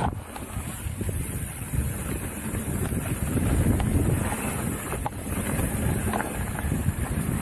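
Wind buffeting the helmet-mounted camera's microphone, with mountain bike tyres rumbling over a dirt and gravel trail on a descent and a few light clicks from the bike.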